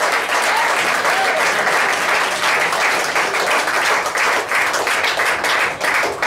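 Concert audience applauding, the clapping thinning out near the end into separate claps.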